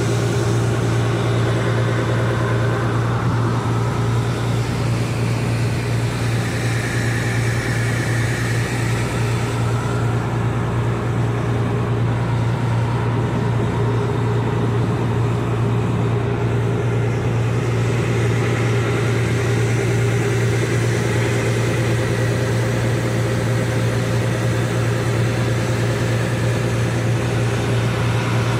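Ferry boat's engine running steadily: a loud, even low drone with a constant hum, heard from on deck.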